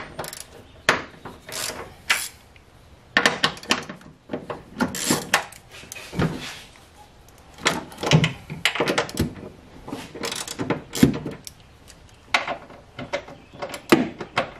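Irregular clicks, knocks and rustles of hand tools and hands working at the 13 mm rear seat bolts inside a car.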